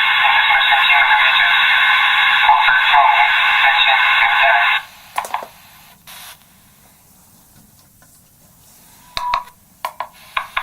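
Megaphone speaker playing back a many-times re-recorded recording of a spoken phrase, so worn down that it is a tinny, garbled wash with no clear words. It cuts off suddenly about halfway through. A few short clicks follow, then brief tinny bursts near the end.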